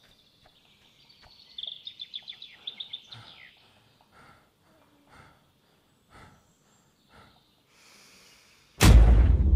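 A bird gives a rapid run of high chirps early on, over faint soft sounds about once a second. Near the end a short hiss leads into a sudden loud booming hit with a long, low rumble that dies away slowly, a cinematic impact sound effect.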